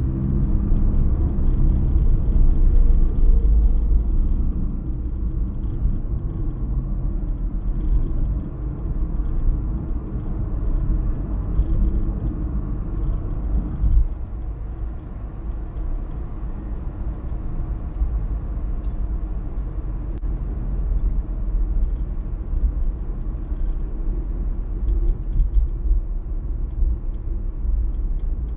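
Car on the move: steady low rumble of engine and tyres on the road. There is a short knock about fourteen seconds in, and the level eases slightly after it.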